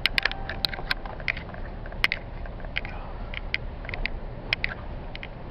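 Inside a pickup truck's cab driving down a rough, slippery dirt track: a steady low rumble of engine and tyres under irregular sharp clicks and rattles as the cab jolts over the ruts.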